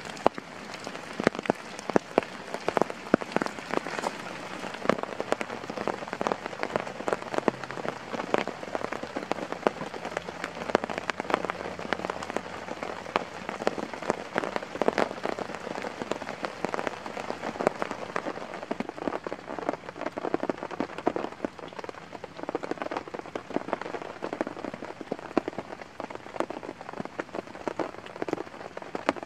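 Steady rain falling, with a dense scatter of sharp individual drop impacts over an even hiss.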